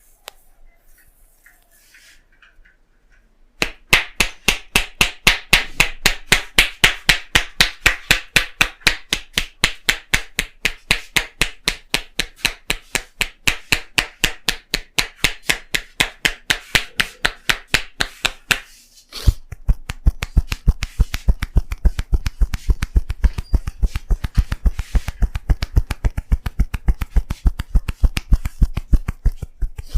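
Tapping head massage: hands striking in a fast, even rhythm, several crisp slaps a second for about fifteen seconds. After a brief pause comes a second run at a similar pace, duller and deeper, like thumps.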